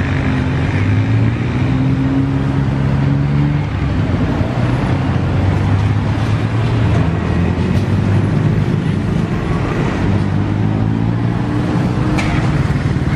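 Motor vehicle engine running close by amid street traffic noise, a steady low hum whose pitch drifts slowly up and down.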